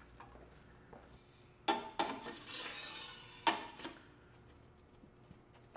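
Metal parts of an optomechanical assembly clinking and scraping as a screw is started into a plate: two knocks a little under two seconds in, a brief scrape, then another knock.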